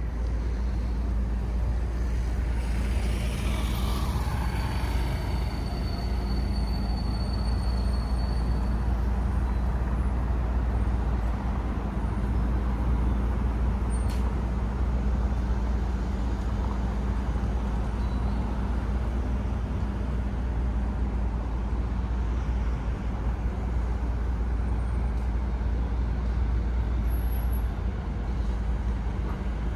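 Road traffic: a steady low rumble of engines and tyres with a constant engine hum. A vehicle passes a few seconds in, and a thin high-pitched whine follows for several seconds.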